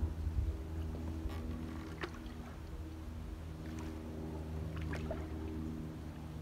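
A small motor pushing a canoe runs steadily, with a few light knocks against the boat.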